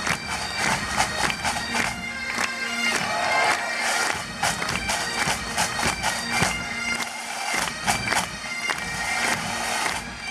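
Scottish bagpipes playing a tune: the chanter's melody with quick ornamented note changes over a steady drone.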